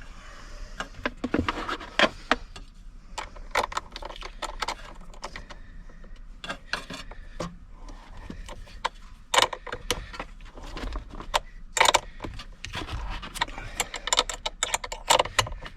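Irregular metallic clicks, clinks and knocks with short scrapes, from metal parts and tools being handled while a van's under-seat battery and its fittings are put back in place.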